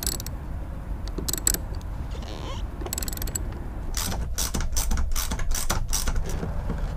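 Socket ratchet wrenches clicking as the bolts holding an aluminium trolling-motor mounting plate are tightened. A few short bursts of clicks come first, then from about four seconds in a quicker run of clicks, about four a second, for some two seconds.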